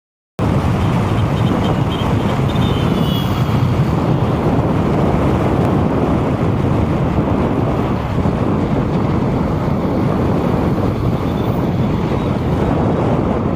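Steady, loud, low rumble of road-vehicle noise, starting abruptly after a brief silence right at the beginning.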